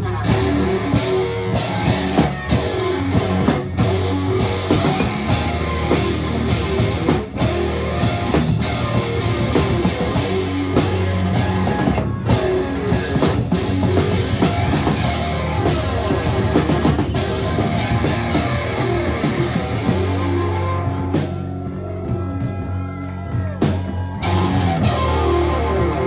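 Live rock band playing with electric guitar, bass and drum kit. About 21 seconds in the drums drop back for a few seconds, leaving mostly guitar, before the full band comes back in near the end.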